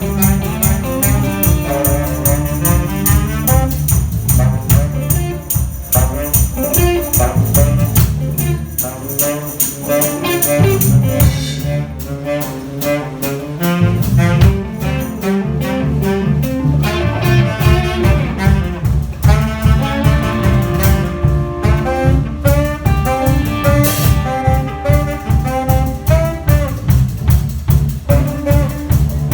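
A live band playing a piece with a steady beat. A high jingling shimmer runs through the first part and stops about eleven seconds in. The lowest bass thins out for a few seconds around the middle.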